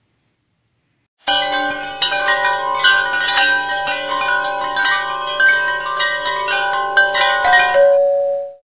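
Tinkling chime music: many bell-like notes ringing and overlapping. It comes in suddenly about a second in and ends with a held lower note that fades out just before the end.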